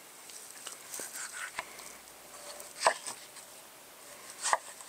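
Folding knife slicing a tomato on a wooden cutting board: quiet cutting with a few light taps of the blade against the board, the two loudest about three seconds in and near the end.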